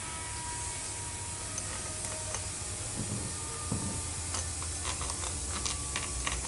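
Steady workshop hiss with a low hum underneath, and a few light clicks about four to six seconds in as metal parts are handled on an aluminium transmission valve body.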